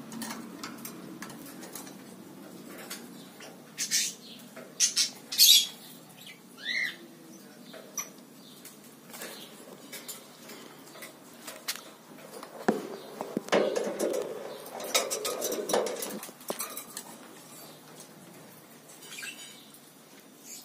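Rainbow lorikeet climbing about its wire cage: sharp clicks and rattles of beak and claws on the metal bars, one short chirp, and a few seconds of louder rustling and clattering in the second half.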